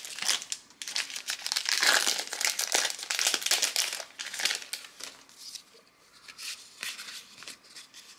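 Foil Magic: The Gathering booster pack wrapper crinkling and crackling as it is torn open and pulled apart. After about five seconds it goes quieter, with a few light ticks from the cards being handled.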